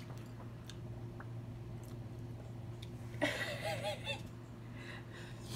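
A woman's short burst of laughter about three seconds in, with a breathier follow-up near the end, over a faint steady hum.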